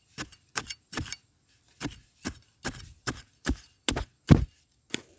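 An iron digging blade chopping into dry, stony soil again and again to dig out wild yam tubers: about a dozen strikes at roughly two a second, the loudest a little past four seconds in.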